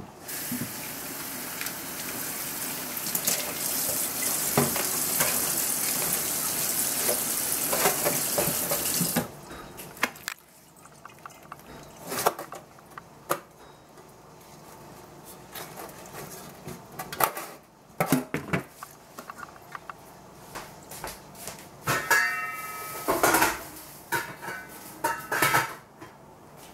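Kitchen tap running into a stainless-steel sink for about nine seconds, then shut off. Knocks and clatter of a metal steamer pot and basket being handled follow, with a brief metallic ring past the middle.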